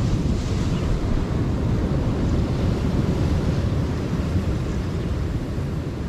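Wind buffeting the microphone in a rough, fluctuating rumble, over the steady wash of surf breaking against rocks.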